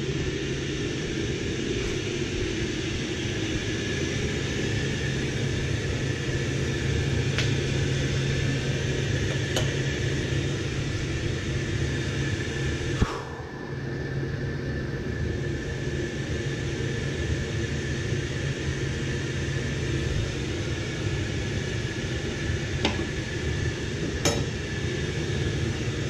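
Steady hum and hiss of a running snowmelt heating plant (gas boilers firing and circulator pumps moving water through the floor-loop manifold), with a few faint clicks.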